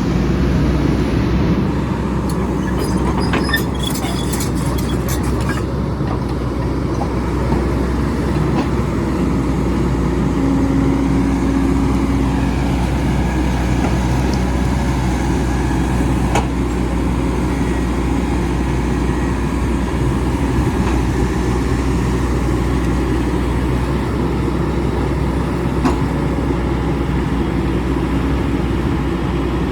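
Excavator's diesel engine running steadily under load while it works a rocky hillside, with a cluster of sharp clanks about two to six seconds in and a brief whine near the middle.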